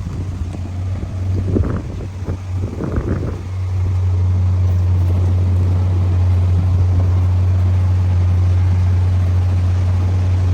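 A large engine of road-construction machinery running with a steady low drone. It becomes loud and constant about three and a half seconds in, after a stretch of uneven rumbling and knocks.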